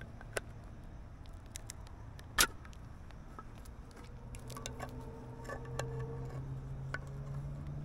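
Small metal clicks and scrapes of a pocket can opener working at the lid of a can of baked beans, with one sharper click about two and a half seconds in. A steady low hum comes in about four seconds in and holds on.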